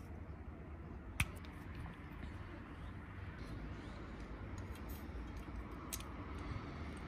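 Plastic and metal scale-model parts handled and fitted together by hand: one sharp click about a second in and a fainter one near the end, over a steady low background rumble.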